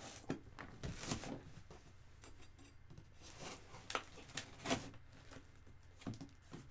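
Faint, irregular scrapes and knocks of a knife working at a taped cardboard box and of the box being handled, in short separate strokes.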